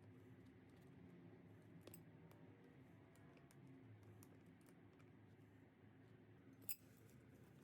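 Near silence: faint room tone with a few small clicks, one sharper click near the end.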